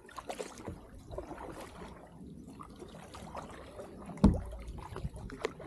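Kayak paddles dipping and pulling through calm river water, with dripping and small splashes. A single sharp knock about four seconds in is the loudest sound.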